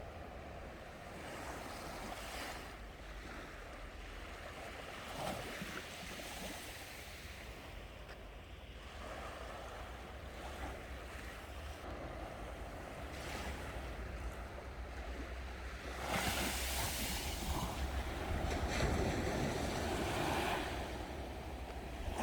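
Surf breaking and washing up a sandy beach, a continuous rushing wash that swells louder about three-quarters of the way through.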